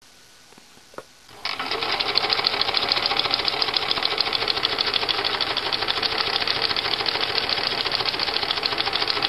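Husqvarna Viking sewing machine fitted with a walking foot, starting up about a second and a half in and stitching at a fast, even rhythm. The machine and foot are running and working well.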